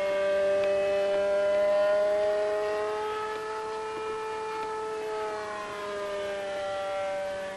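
Electric radio-controlled model airplane's Astro Electric motor and propeller whining on a low pass. The pitch rises slowly, then falls away as the sound fades near the end.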